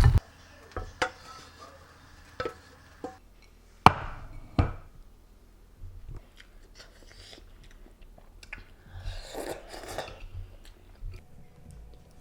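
Scattered light knocks and clicks of objects being handled, with one sharper knock about four seconds in and a brief rustle around nine seconds in.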